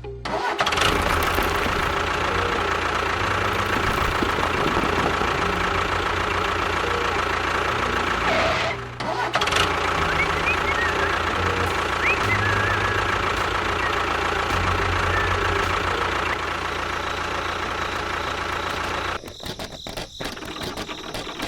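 An engine running steadily with a fast, low, even chug. It drops out briefly about nine seconds in, then resumes and turns quieter and uneven near the end.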